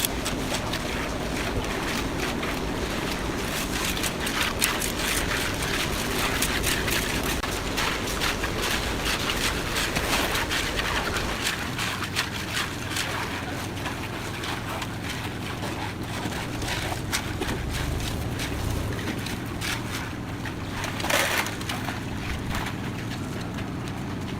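Motor-driven concrete mixer running steadily, with a constant low engine hum and dense rattling and scraping from the drum. A brief louder rush comes near the end.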